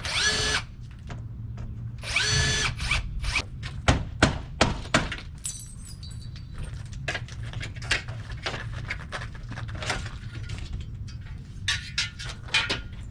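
A cordless drill runs in two short bursts, the second about two seconds after the first. Then comes a long series of sharp knocks and clicks from aluminum window frame parts being worked loose and handled.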